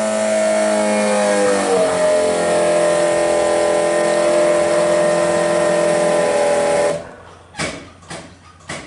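A motor running steadily with an even pitch, dipping slightly about two seconds in, then cutting off suddenly about seven seconds in, followed by a few short clicks.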